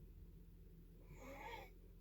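Faint snoring of a sleeper: one hissy breath, about two-thirds of a second long, a little past the middle, part of a run of breaths that come about every two seconds.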